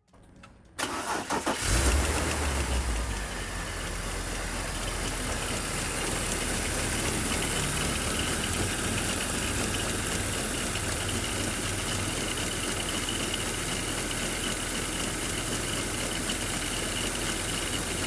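BMW M54 inline-six engine cranking and catching about a second in, flaring briefly, then settling into a steady idle. The idle carries the noise of a worn serpentine belt tensioner, with a faint steady high-pitched tone running through it.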